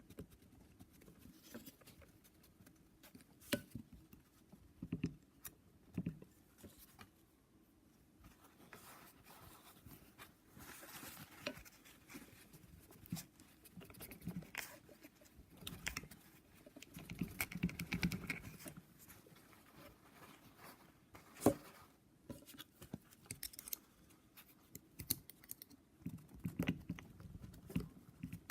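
Faint scattered clicks and scraping of small metal parts being handled as a piston pin retaining clip is worked into its groove on a piston, with one sharper click about two-thirds of the way through.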